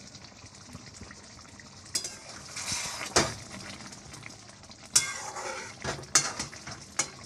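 Metal spatula scraping and clinking against a metal kadai while stirring lentil kofta in simmering gravy. The gravy bubbles with a low sizzle, and from about two seconds in there are several separate scrapes and clinks.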